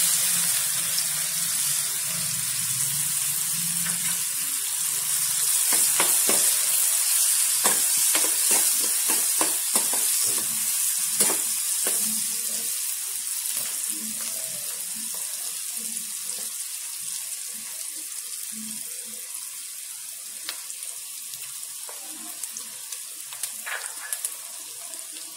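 Chopped onion sizzling loudly in hot oil in a steel kadhai, the sizzle slowly dying down as the onion cooks. A metal spoon clicks and scrapes against the pan as it is stirred, mostly in the middle stretch.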